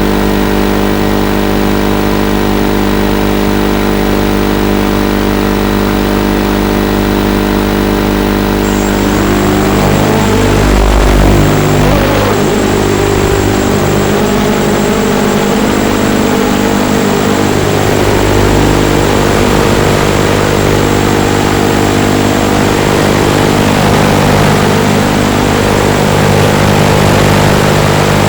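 Eachine Racer 250 quadcopter's brushless motors and propellers spinning, a dense, steady multi-tone hum at first; from about nine seconds in the pitch starts wavering up and down with the throttle changes of flight. A thin high whine joins shortly before that.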